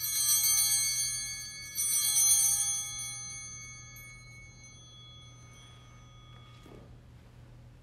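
A set of altar bells shaken, striking once at the start and again about two seconds in, each ring dying away over a few seconds: the bells rung at the elevation of the consecrated host at Mass.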